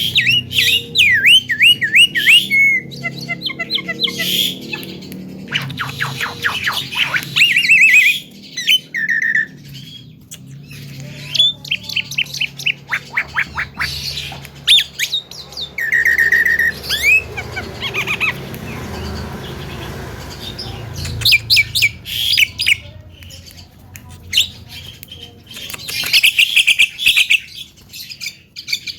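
A Javan myna calling in repeated bouts of rapid chirps, sweeping whistles and harsh squawks, with short pauses between bouts.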